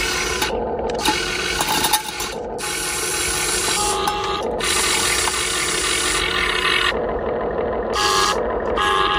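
Motor and gearbox of a radio-controlled dump truck running with a grinding, rasping whir that cuts out briefly several times.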